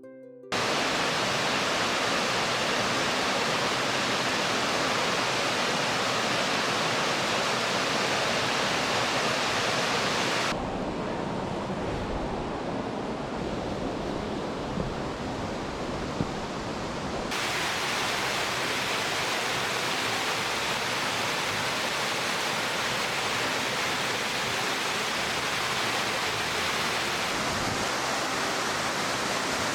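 Steady rushing roar of a waterfall's falling water. About ten seconds in it turns duller and lower for some seven seconds, then the brighter rush returns.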